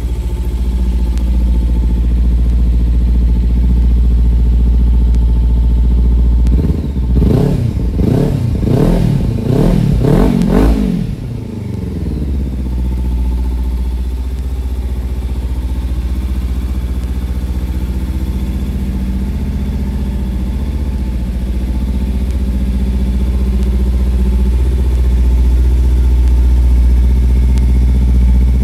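Kawasaki Ninja 300 parallel-twin engine idling through a Yoshimura aftermarket exhaust, warming up; about a third of the way in it is given a quick series of throttle blips, rising and falling in pitch several times, then settles back to a steady idle.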